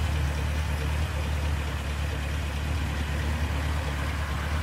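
2013 Camaro SS's LS3 V8 idling steadily, a low even hum with no change in pitch.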